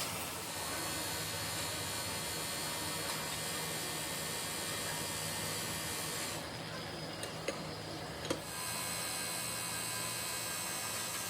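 Steady hiss with a hum, as of machinery running. The high hiss drops out for about two seconds in the middle, where two sharp clicks sound close together.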